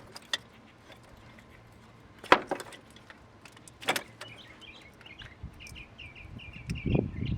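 Sharp clicks and knocks of hands and tools working the plastic wiring-harness connectors and clips off the engine's fuel rail and injectors, with a bird chirping in quick repeated notes from about halfway through.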